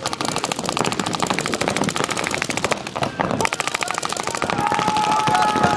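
Rapid paintball marker fire, many shots a second from several guns at once, with a brief lull about three seconds in.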